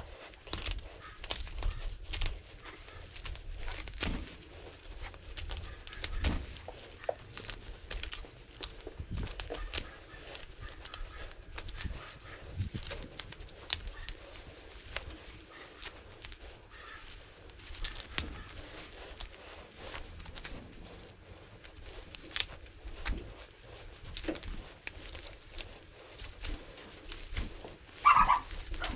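Hand butchering of a calf carcass during deboning: irregular clicks, knocks and scrapes of tools on meat and bone, with one brief louder whine near the end.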